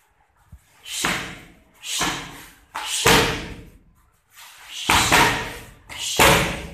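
Punches and kicks landing on padded focus mitts: about six hard smacks, roughly a second apart, each trailing off in the hall's echo.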